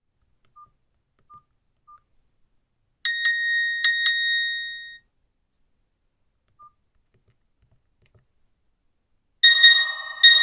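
Default ringtones on a Nokia 5310 feature phone playing through its small built-in speaker. Three short quiet beeps come first, then a bright, bell-like ringtone of a few chiming notes plays for about two seconds. After one more short beep, a second ringtone starts near the end.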